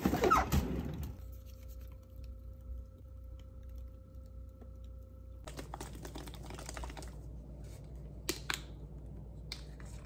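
A fridge's freezer drawer pulled open with a sliding rumble and knock, then a low steady hum. Then a carton of coconut water is handled and shaken, with a few sharp clicks and taps near the end.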